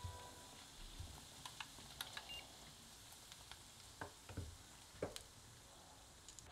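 Yeast-dough donuts deep-frying in a pot of vegetable oil: a faint steady sizzle with scattered pops and crackles.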